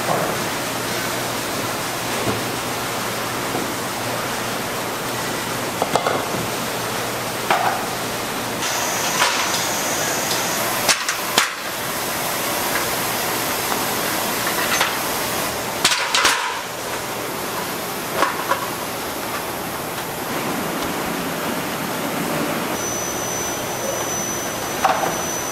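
Steady noise of snack-factory machinery with scattered metallic knocks and clatter, and a thin high tone that comes in twice.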